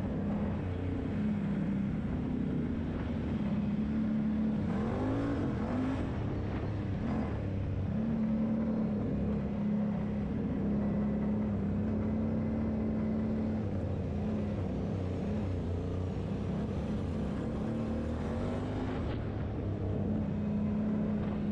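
Quad bike engine running steadily at an even pitch, with short rises and falls in engine pitch around five and fifteen seconds in.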